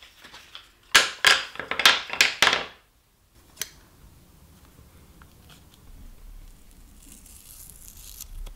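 Double-sided adhesive tape pulled off its roll in a quick run of short ripping strokes, followed by a single sharp snip-like click from scissors and then quiet handling of the tape.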